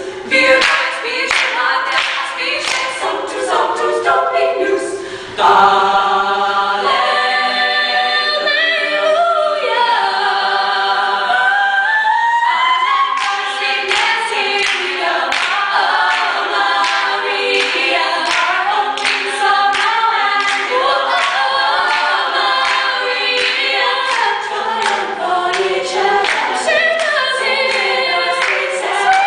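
Women's a cappella choir singing in close harmony with no instruments. About five seconds in it swells into held chords while one voice slides upward. From about thirteen seconds a lead singer carries the tune over the group, with a steady beat of hand claps.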